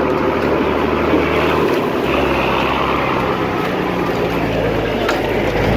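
Mercedes-Benz Unimog diesel engine running under load, heard from the open cargo bed, with a steady rushing noise over it. The engine note shifts about two seconds in.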